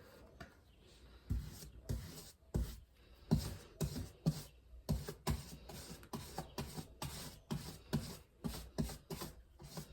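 A run of short, irregular knocks and thumps, about two a second, starting a little over a second in.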